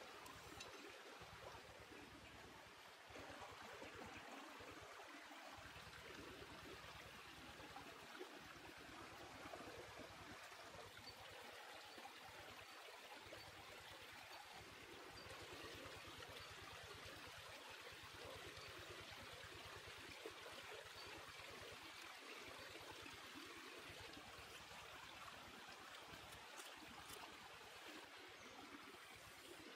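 Faint, steady running water of a small stream or trickle, an even rushing hiss.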